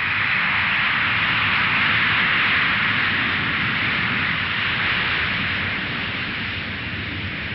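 Airplane engine noise: a loud, even rushing sound that swells over the first couple of seconds and then slowly fades.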